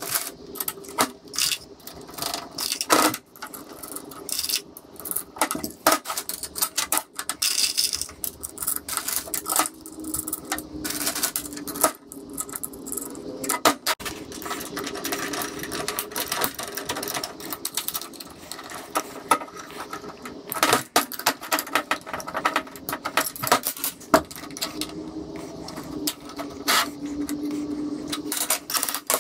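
Steel plate, machined angle-iron pieces and small fixings being handled and fitted together on a steel workbench: irregular metallic clinks, taps and clatter.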